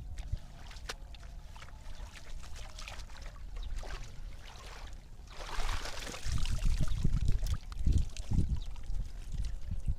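Water splashing and sloshing, with scattered small splashes and a louder, longer splash about five and a half seconds in.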